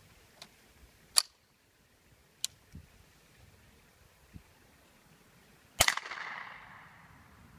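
A few sharp clicks as a Remington 597 semi-automatic .22 rifle is raised, then a single shot of a .22 snake-shot round about six seconds in, ringing out and fading over a couple of seconds.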